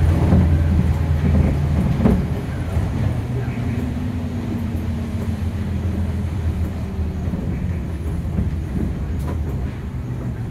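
Nissan Diesel UA460 city bus under way, heard from inside the cabin: a steady low diesel engine drone with a couple of body knocks near the start, gradually getting quieter.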